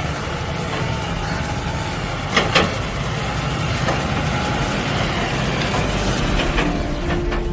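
Steyr 650 tractor's diesel engine running with the Welger AP63 baler working behind it, a steady mechanical noise with two sharp knocks about two and a half seconds in.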